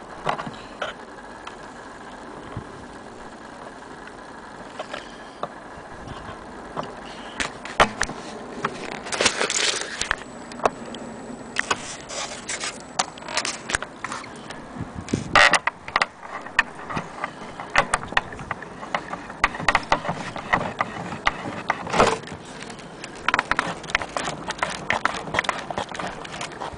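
Handling noise from old gramophone parts: scattered metal clicks, knocks and scrapes as the soundbox, tone arm, turntable and crank are picked up and turned over, with busier bursts of clattering and scraping at a few points.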